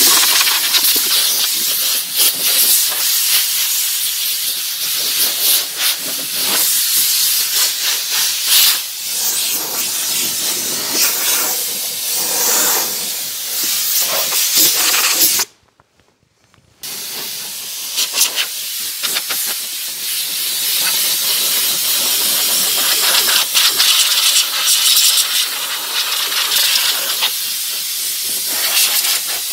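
Compressed-air blow gun hissing as it blasts dust off a tractor, the trigger let go once for about a second a little past the middle.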